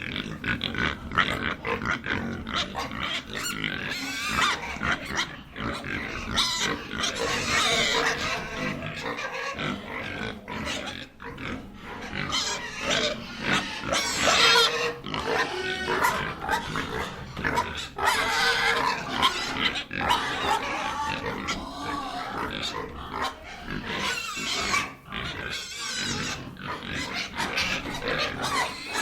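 A piglet squealing and grunting in a long, busy run of wavering, high-pitched cries with short breaks between them.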